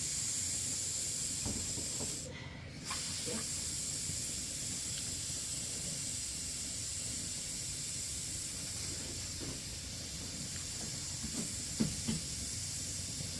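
Steady hiss of falling rain. It briefly drops away a little over two seconds in, with a few faint knocks near the end.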